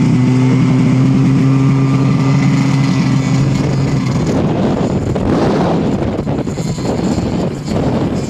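Snowmobile engine held at steady high revs after revving up. About four seconds in, its steady tone gives way to a rough rushing noise of wind and the ride.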